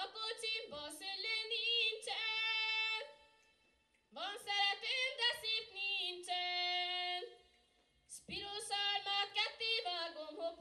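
A young woman singing solo and unaccompanied, the opening passage of a song. She sings in three phrases; the first two end on long held notes with vibrato, each followed by a short pause near silence.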